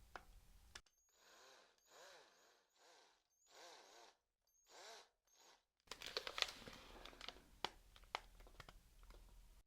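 Electric drill, kept very soft, triggered in short bursts: about five quick spin-ups that rise and fall in pitch, then a busier stretch of scraping noise with sharp clicks.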